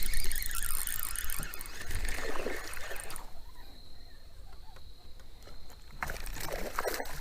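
Water splashing and sloshing as a hooked bass thrashes at the surface while being reeled in and landed, in two bursts: a longer one over the first three seconds and a shorter one near the end.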